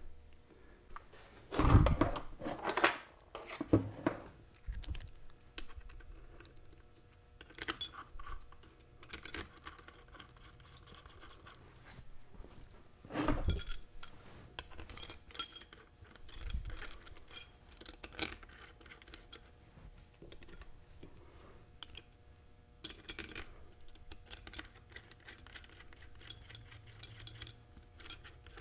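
Steel ring gear bolts and lock tabs clinking and rattling as they are handled and set into a differential carrier. A few heavier knocks come about 2, 4 and 13 seconds in.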